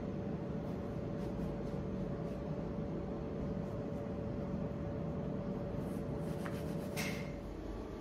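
Steady whir of an electric fan motor with a steady hum that stops with a click about seven seconds in.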